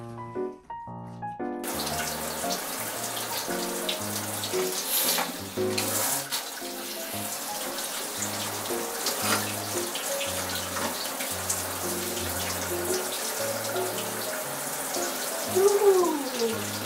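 Handheld shower head spraying water onto a small dog's long coat in a shower board basin, a steady hiss that starts about a second and a half in, under background music. Near the end a short falling vocal sound is briefly the loudest thing.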